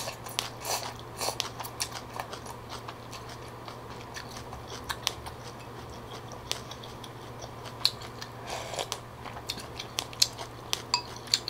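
Close-miked eating of phở: a short slurp of noodles at the start, then soft chewing with many small, scattered clicks and light taps of chopsticks and a wooden spoon against a ceramic bowl.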